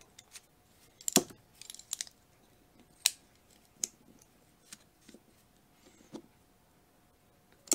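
Irregular light clicks and clinks of small steel hand tools and parts being handled while a new U-cup seal is worked into a hydraulic pallet jack's pump housing, with the sharpest click about a second in.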